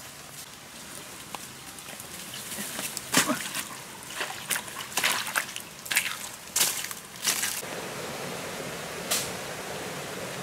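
Irregular sharp steps and rustles through forest undergrowth, then, from about three-quarters through, a steady rush of water in a shallow stream.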